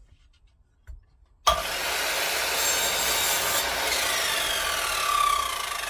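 A power tool switches on suddenly about a second and a half in and runs steadily on wood, with a steady whine and tones that slowly fall in pitch.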